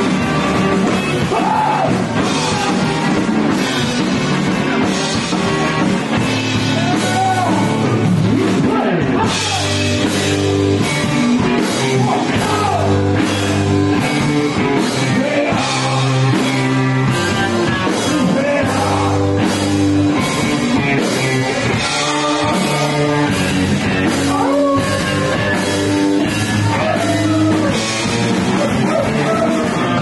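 Live rock band playing with sung vocals: guitars, bass and drum kit, with heavy bass notes coming in about seven seconds in.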